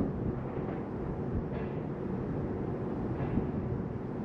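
Outdoor ambience: a steady low rumble with a faint steady hum under it.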